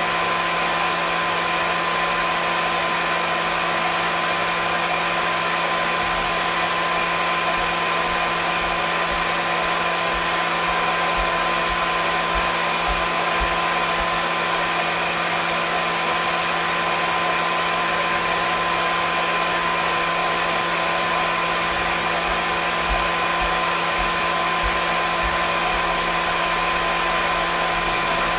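Hair dryer running continuously: a steady rush of blown air with a constant motor whine.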